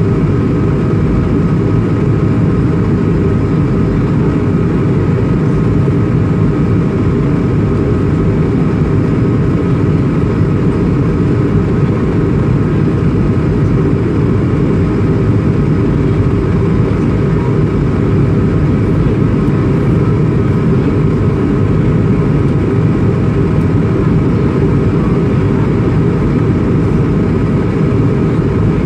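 Steady in-flight cabin noise of an Airbus A220-300, heard from a window seat over the wing: a deep, even rumble of its Pratt & Whitney PW1500G geared turbofans and rushing air, with a faint steady hum on top.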